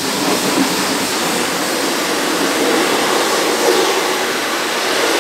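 High-pressure washer lance spraying a jet of water onto the metal entry steps of a truck cab, a loud steady hiss.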